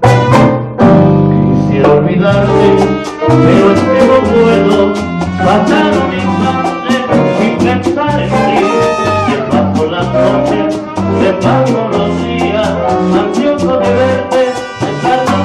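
Live salsa band playing a passage with no lead vocal: trumpets over a driving rhythm of congas, timbales and güiro, with electric bass and keyboard.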